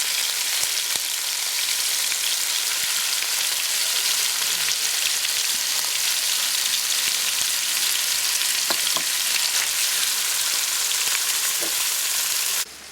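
Marinated chicken pieces frying in ghee in a pan: a steady, dense sizzling hiss with fine crackles. It cuts off suddenly just before the end.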